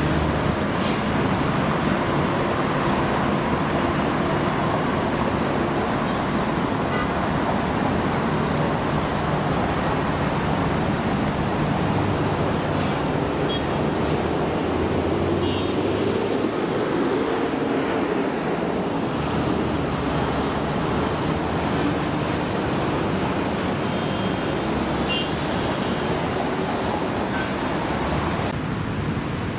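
Steady city road traffic: cars passing with a continuous hum of engines and tyres.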